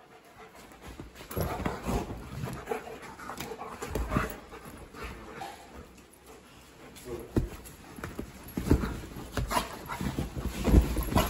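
A German shepherd and a wolfdog play-wrestling on a leather couch: heavy panting with irregular thumps and scuffling of their bodies against the leather, starting about a second in.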